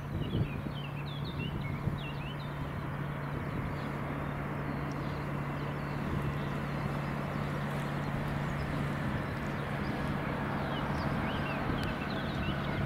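Boeing 777-300ER's GE90 turbofan engines running as the airliner rolls out on the runway after landing: a steady drone with a faint whine that sinks slowly in pitch in the second half. Small birds chirp in the first couple of seconds and again near the end.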